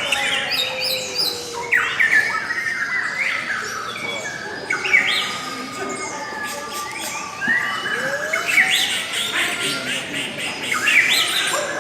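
Lovebird singing: a long, unbroken run of fast squeaky chirps, twitters and quick rising and falling whistles.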